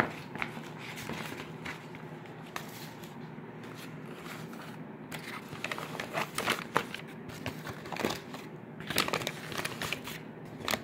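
Foil-lined paper burger wrapper being unwrapped by hand, crinkling and crackling in irregular bursts, loudest about six and nine seconds in.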